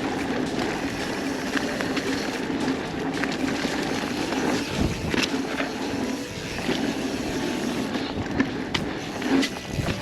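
Vitus Mythique full-suspension mountain bike rolling fast down a dirt trail: steady tyre noise with a constant hum, and sharp knocks and rattles from the chain and frame over bumps, several of them near the end.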